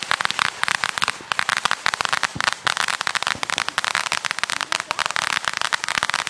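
Ground fountain firework spraying sparks, with a dense, continuous crackle of many small rapid pops.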